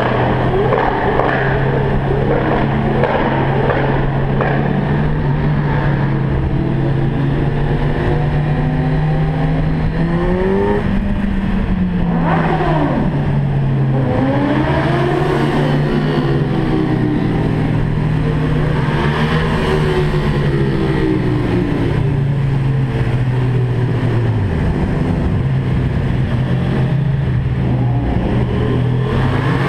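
Car engine and exhaust running loudly under way in a road tunnel, the tunnel walls throwing the sound back. It holds a steady drone, and the revs rise and fall several times, around a third of the way in, near the middle and again later on.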